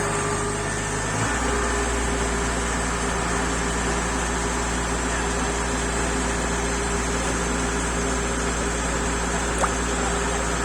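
Kubota DC-70 combine harvester's diesel engine running steadily, its low note changing about a second in and then holding steady.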